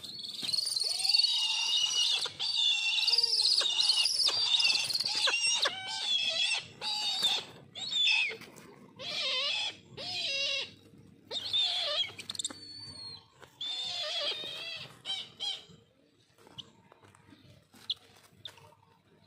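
Birds of prey squabbling over food, giving shrill, high-pitched screaming calls. The calls come almost without a break for the first few seconds, then as separate calls about once a second, and die away near the end.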